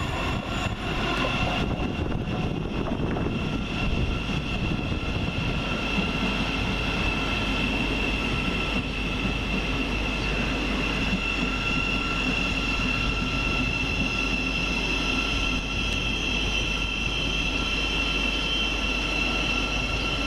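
A pair of Class 360 Desiro electric multiple units running, a steady rail rumble with a constant high electric whine over it.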